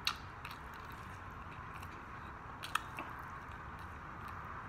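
Close-miked chewing and biting of fried chicken, with a few sharp clicks as meat is bitten and pulled off the bone: one right at the start and two close together near three seconds in, over a faint steady hiss.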